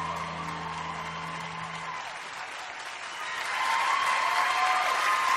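The last held chord of the song's accompaniment rings out and stops about two seconds in. A studio audience's applause then swells up and grows louder.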